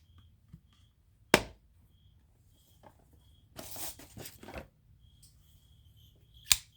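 Twosun TS38 folding pocket knife worked by hand: two sharp clicks of the blade, one about a second in and one near the end, with rustling handling between. The blade's action is being tested: it is not quite drop-shut but shakes shut.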